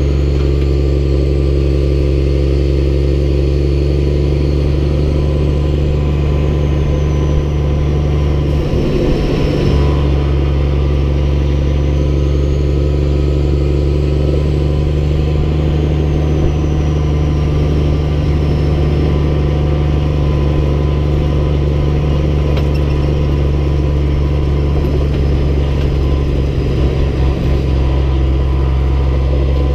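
Heavy snowplow truck's diesel engine running at a steady speed while driving, a constant low drone.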